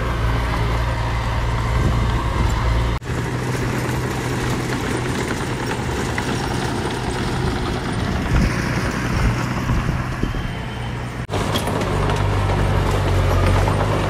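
Engines of heavy earthmoving machinery running steadily under load. The sound breaks off abruptly and changes character twice, about three seconds in and again near eleven seconds.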